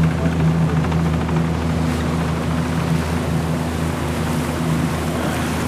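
Small motorboat's engine running at a steady cruising speed, a constant low hum with no change in pitch, as the boat moves through calm water.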